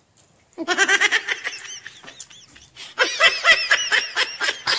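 High-pitched laughter in quick repeated bursts, starting about half a second in, pausing briefly, then coming back louder at about three seconds.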